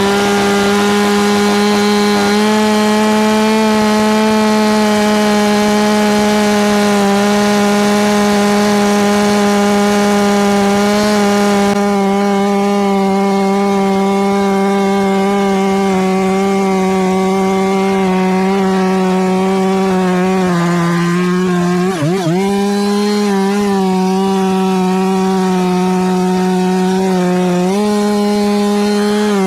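FarmMac F669 two-stroke chainsaw at full throttle, cutting through a large pecan log. The engine pitch sags about twenty seconds in, dips sharply for a moment as the chain bogs in the wood, then climbs back, with a smaller sag near the end.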